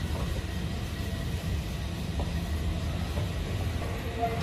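Passenger train coaches rolling past on the track, a steady low rumble.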